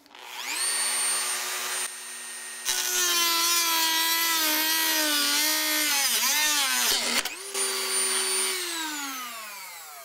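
Dremel rotary tool with a screw-on abrasive cutoff disc spinning up to a high whine, then grinding into metal from about three seconds in, its pitch wavering and sagging under the load. Around seven seconds in the disc jolts as the tool slips, runs free briefly, and the motor winds down near the end.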